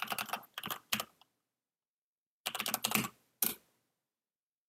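Typing on a computer keyboard: two quick bursts of keystrokes about a second long each, a pause between them, the second burst followed by one separate keystroke.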